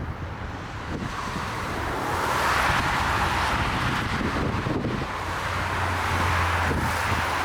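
Jet airliner engines growing louder over about two seconds and then holding steady, with gusty storm wind buffeting the microphone.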